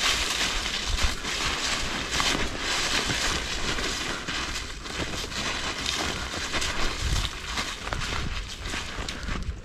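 Footsteps crunching through snow at a steady walking pace.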